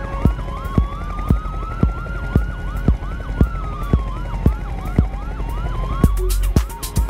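House music breakdown: a steady kick drum about twice a second under a siren-like synth effect, one slow rising-then-falling sweep with quick repeating chirps over it. About six seconds in, the full beat returns with hi-hats and heavier bass.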